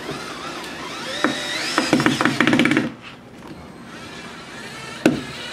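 DeWalt gyroscopic electric screwdriver driving a Phillips screw into a metal drawer slide: the motor whine rises in pitch and ends in a rapid run of clicks, stopping about three seconds in. A single sharp knock near the end.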